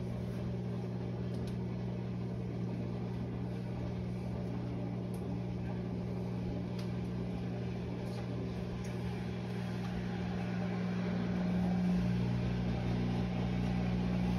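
Steady low electrical hum of a kitchen appliance motor, with a few faint clicks of things being handled.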